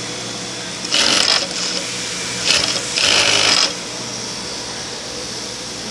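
Industrial sewing machine stitching a hem on towel fabric fed through a hemming folder, in three short bursts of stitching about a second in, around two and a half seconds in, and near the middle, with a steady low hum between them.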